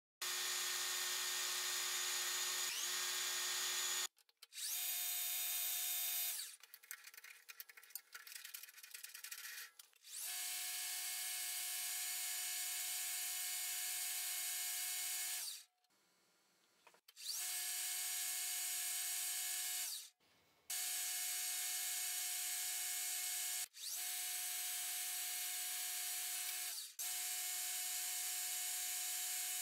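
Metal lathe running with a brass rod spinning in its chuck while it is drilled and turned: a steady machine whine with several held tones. It comes in stretches of a few seconds that stop abruptly and start again. Between about six and ten seconds in, the whine gives way to a quieter, irregular scratching.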